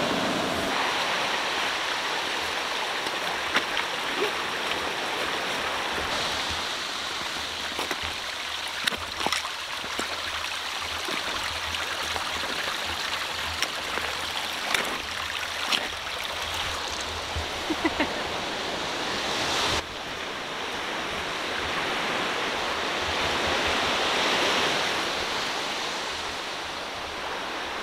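Steady wash of small waves breaking on a pebble beach, with scattered faint clicks of footsteps on the stones. The wash changes abruptly about two-thirds of the way in.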